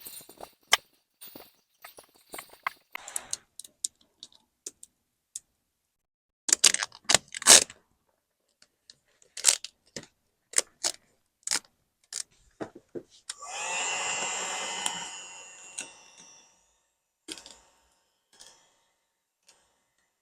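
Scattered clicks and knocks from handling tools and the decal backing, then, about two thirds of the way through, a handheld hot-air blower runs for about three seconds, warming the vinyl decal so it sticks in the cold.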